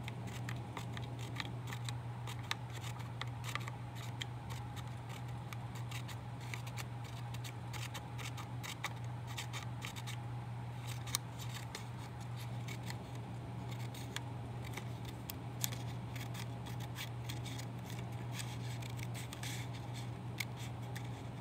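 Scissors snipping short cuts into the edge of a strip of construction paper to make a fringe: many small, irregular snips one after another. A steady low hum runs underneath.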